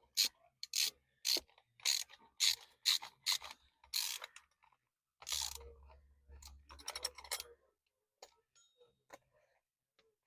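Hand ratchet with a 9/16 socket clicking as it is worked back and forth on a nut, in short strokes about two a second, then a longer run of clicking, then a few scattered clicks near the end.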